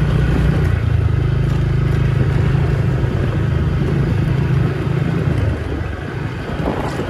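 A vehicle's engine running steadily as it drives along a rough dirt road, with a low drone that grows a little quieter about five seconds in.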